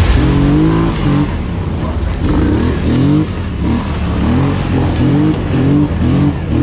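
Quad (ATV) engine under hard riding, its pitch climbing and dropping again and again as the throttle is opened and let off.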